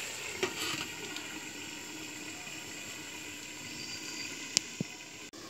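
Aluminium lid set down on an iron karahi with a light knock about half a second in. Then the steady hiss of a wood fire burning in a clay stove under the covered, simmering curry, with two sharp pops near the end.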